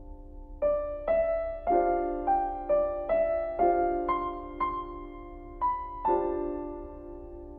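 Background piano music: a slow melody of single notes, about two a second, over a held low chord, settling on a sustained chord near the end.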